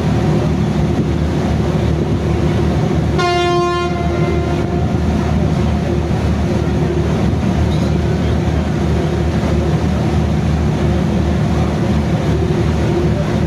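A heavy vehicle's steady low rumble, with a single horn blast about three seconds in that lasts under a second.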